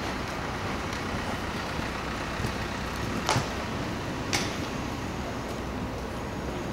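Steady background rumble and hiss, with two short sharp noises about a second apart near the middle.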